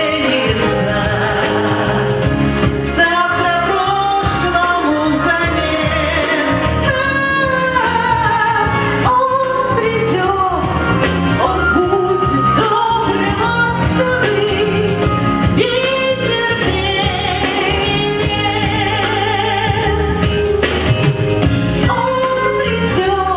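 A song: a singing voice over instrumental accompaniment.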